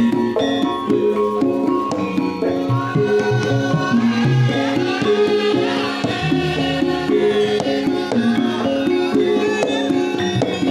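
Javanese gamelan music of the kind that accompanies lengger dance: struck metal keyed instruments play a busy run of short stepped notes over hand-drum (kendang) strokes. A wavering higher melody line rises above them in the middle.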